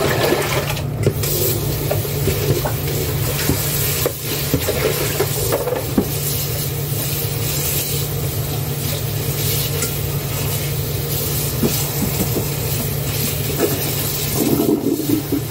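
Kitchen range hood extractor fan running with a steady rush and a low hum, with a few light clicks and knocks of utensils.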